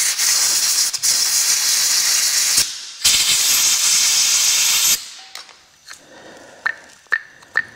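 Compressed-air blow gun blasting air into a brake caliper to clean it out: a loud, steady hiss in two long blasts, with a short break about two and a half seconds in, cutting off sharply about five seconds in. Faint small clicks follow near the end.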